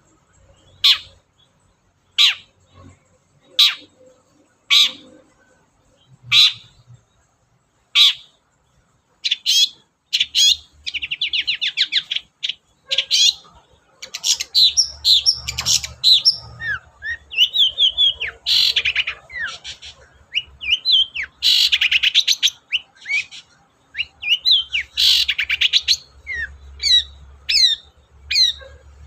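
Long-tailed shrike (cendet) singing: a string of single harsh calls about one every second and a half, then, about ten seconds in, a fast, varied song of chattering notes and trills.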